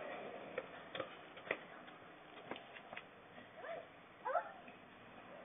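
A dog giving two short, high yips near the end, with scattered faint clicks before them.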